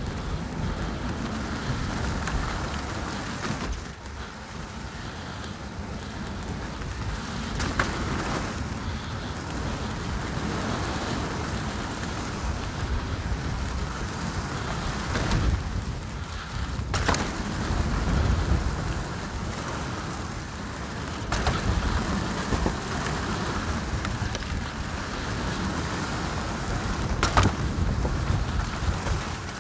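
Canyon Strive 29er mountain bike descending a rough rocky trail, heard from a GoPro: steady tyre noise over rock and gravel mixed with wind on the microphone. Sharp knocks and rattles from the bike hitting rocks come every few seconds.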